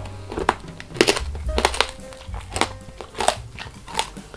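Tanghulu strawberries' hard candied sugar shell crunching and cracking between the teeth during close-miked chewing: a string of sharp, irregular crunches.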